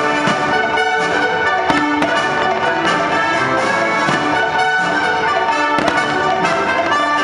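Orchestral fireworks-show soundtrack led by brass, playing loudly, with a couple of sharp firework bangs over it, one a little under two seconds in and one near six seconds.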